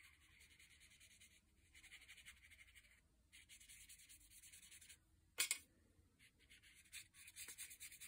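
Faint swishing of a watercolour paintbrush's bristles being worked across damp paper, in soft patches, with one short sharp click a little after halfway.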